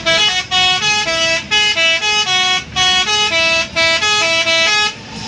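Bus 'telolet' musical air horn playing a quick tune of short stepped notes, several pitches up and down, stopping near the end.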